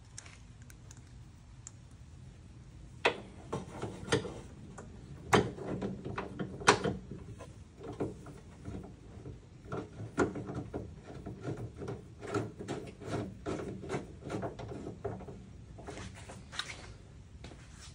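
Irregular metallic clicks, knocks and rubbing, starting about three seconds in, as 10 mm bolts holding a pickup tailgate's handle are threaded in and snugged down against the tailgate's inner panel.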